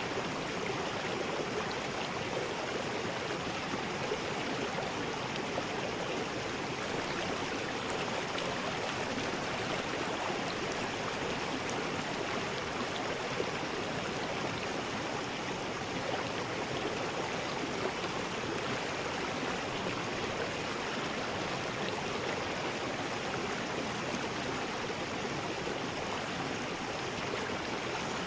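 River rapids: water rushing over rocks in a steady, unbroken rush.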